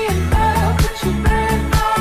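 Background pop music with a steady dance beat and a melody line over it.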